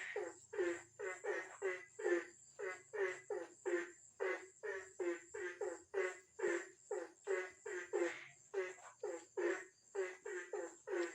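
Frogs croaking in a steady, regular rhythm of about two to three short croaks a second, over a steady high-pitched insect hum.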